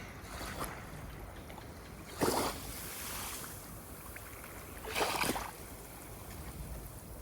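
Ocean waves lapping, with two short splashes about two and five seconds in over a steady low wash of water.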